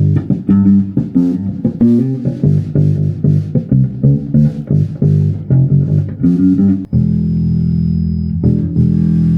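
Guitars and bass playing: a run of quick plucked notes, then a chord held and left ringing from about seven seconds in.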